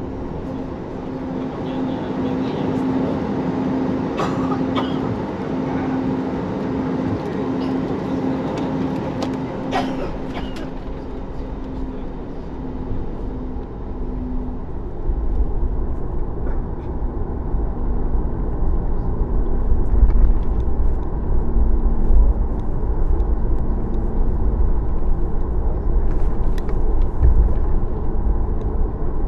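Cabin noise of a Boeing 737 MAX taxiing, its CFM LEAP-1B engines running at taxi power with a steady hum. A few light clicks come in the first half, and from about halfway on a deeper rumble grows louder.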